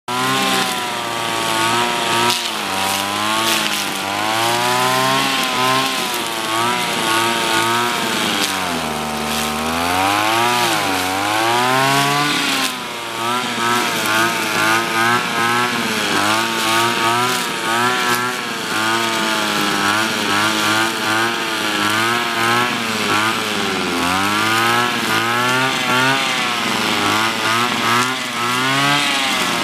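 Engine-powered brush cutter running while cutting grass. Its engine pitch rises and falls continually as the throttle and load change, drops to a low idle about nine seconds in, then revs back up.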